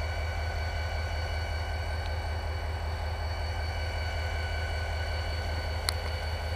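CSX diesel locomotive running as a freight train passes: a steady low rumble with several steady whining tones above it, unchanging throughout, and a sharp click near the end.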